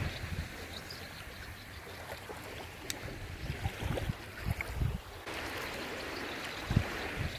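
Seawater lapping and trickling at the shoreline, a steady hiss of small waves, with irregular low thumps and one sharp click about three seconds in.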